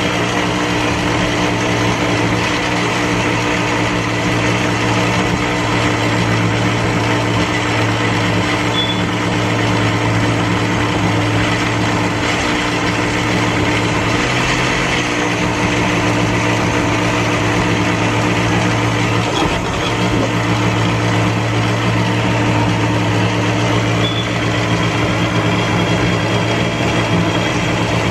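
Black+Decker countertop blender running loudly at a steady speed, its motor and blades pureeing raw greens into a thick smoothie. The sound falters briefly about twenty seconds in, then carries on unchanged.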